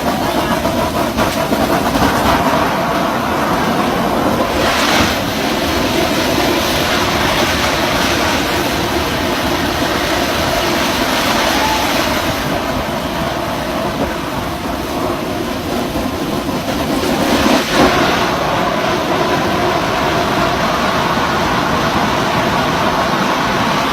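Drilling rig floor machinery running loud and steady, with two brief louder surges, one a few seconds in and one about three-quarters of the way through.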